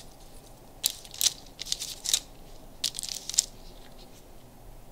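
Crumpled brown kraft paper crackling and crinkling in short clusters as Audi ring emblems are handled on it, with a first group about a second in and a second group around three seconds in.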